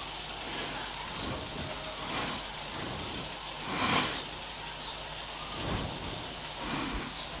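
Gas stove burner hissing steadily, with soft rubbing swishes of hands rolling rice-flour dough into balls on a wooden board, the loudest about four seconds in.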